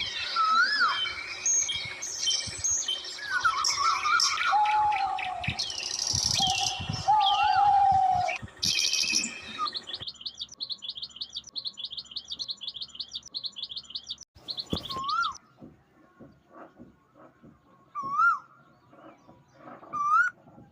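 Birds chirping and whistling, with many short calls overlapping, then a fast run of high chirps about halfway through, and only a few single whistles near the end.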